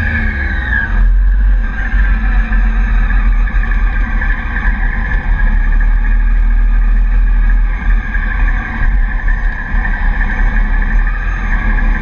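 Triumph Daytona sport bike running steadily at speed on a race track, heard onboard, with a heavy low rumble underneath the engine note.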